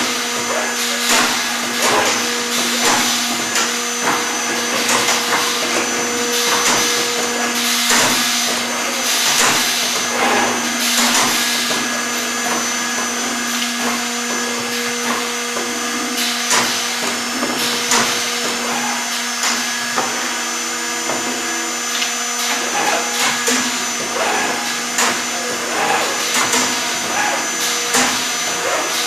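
Accu-Systems VX multi-spindle CNC machine drilling and routing wood panels: the spindle motors whine steadily while the bits cut in louder bursts, strongest about eight to eleven seconds in. Frequent short clicks and knocks come from the panels being loaded and clamped on the tables.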